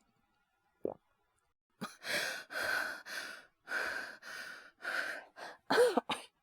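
A man's acted fit of coughing and hard breathing, as someone sick with a fever: one short breath about a second in, then about nine rough, breathy bursts in quick succession, one near the end voiced.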